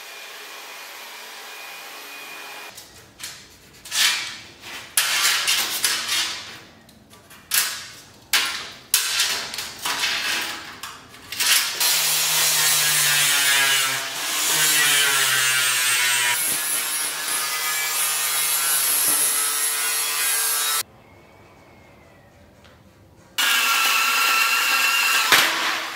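Metalworking power tools on 16-gauge steel: a handheld burnishing machine with an abrasive drum removing mill scale, run in repeated short passes over the sheet. It is followed by an angle grinder with a sanding disc grinding the steel tray steadily for several seconds. After a brief pause near the end, a cordless saw starts cutting angle iron.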